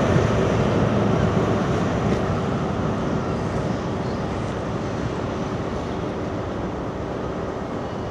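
High Speed Train pulling away, the diesel engine of its Class 43 power car and its wheels on the rails making a steady rumble that slowly fades as the train draws off.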